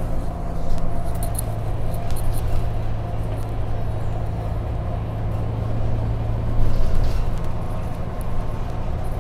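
Scania K310UB city bus's diesel engine droning steadily, heard inside the passenger cabin, with light interior rattles and squeaks. The engine note shifts about seven seconds in.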